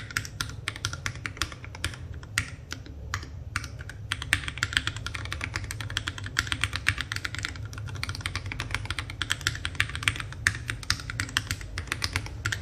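Mechanical keyboard typed on rapidly and at random across all the keys: an FL680 kit with Tecsee Purple Panda tactile switches, NJ80 keycaps and foam lining the bottom case. The keystrokes sound very solid, not hollow or echoing.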